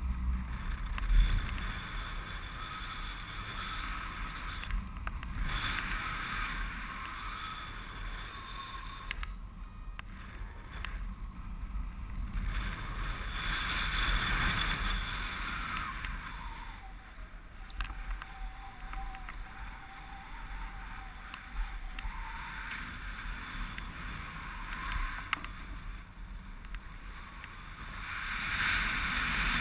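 Airflow buffeting an action camera's microphone in paraglider flight: a rushing, rumbling wind noise that swells and eases. A faint steady tone sounds for about five seconds in the middle.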